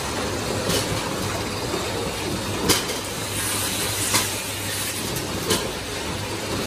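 Machinery of a bottle filling and labeling line running: a steady mechanical hum and hiss, with four short, sharp clacks spread through.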